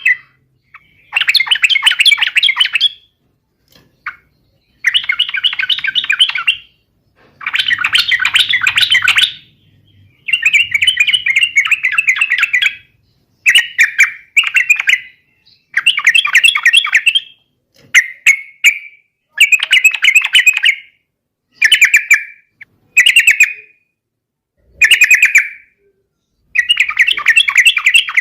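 Yellow-vented bulbul singing: a run of loud chattering phrases, each a second or two long, repeated with short pauses between.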